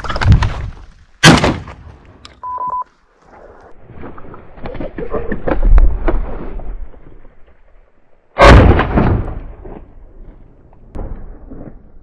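Two shotgun shots fired at partridges, about seven seconds apart, each a sharp blast that dies away over about a second.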